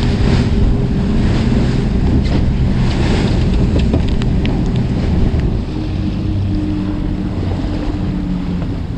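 A fishing boat's engine running under way, with wind buffeting the microphone and water rushing past the hull. About halfway through the engine note changes and the sound gets a little quieter. A few light clicks come as bait is handled in a plastic bag.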